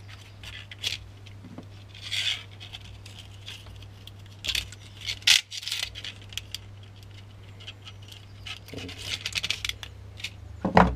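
Fishing leader wire being handled at a wooden table: scattered light clicks, scrapes and rattles as the wire is pulled off its plastic spool and worked with wire cutters, over a steady low hum. A louder knock comes just before the end.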